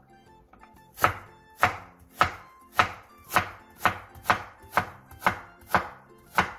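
Chef's knife chopping apple slices into matchsticks on a wooden cutting board: eleven sharp knocks of the blade on the board, about two a second, starting about a second in, over faint background music.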